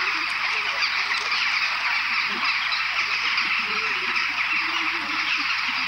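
A flock of waterfowl calling, a dense, continuous chatter of honks that does not let up.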